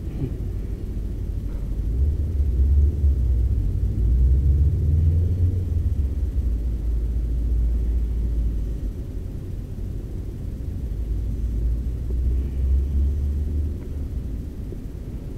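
Wind buffeting an action-camera microphone: a low, uneven rumble that swells and fades in gusts.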